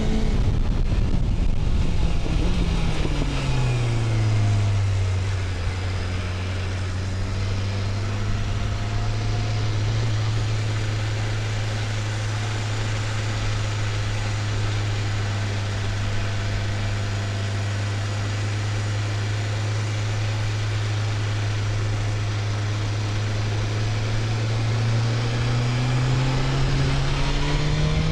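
BMW S1000RR inline-four sport bike engine, with the revs dropping over the first few seconds, then running at a steady mid speed for about twenty seconds before rising again near the end as the bike accelerates.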